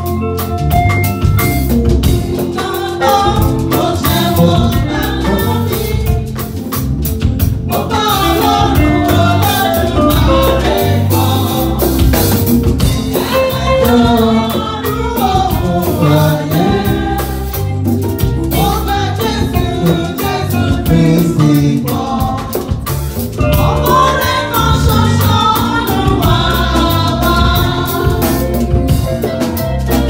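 A church choir singing a gospel song with a live band of drums and keyboard, the drums keeping a steady beat. The voices come in strongly about eight seconds in.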